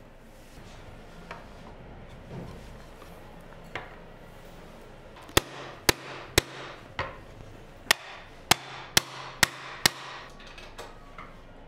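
Claw hammer striking a scrap-wood pad laid on the top boards of a wooden box, about nine sharp blows in quick succession, roughly two a second, knocking the boards down into place. Before the hammering, a few light wooden knocks as the boards are handled.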